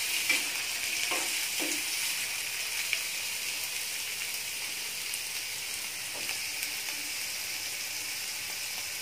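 Chopped onions sizzling steadily in hot oil in a kadhai as they are sautéed. A spatula scrapes and stirs them a few times in the first two seconds or so.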